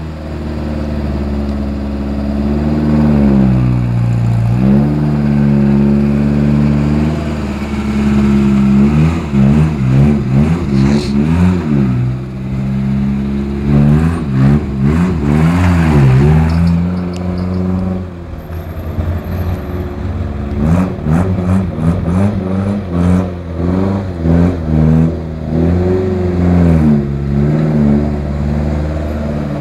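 Suzuki 4x4's engine running, its pitch rising and falling over and over as the throttle is opened and closed, with scattered knocks.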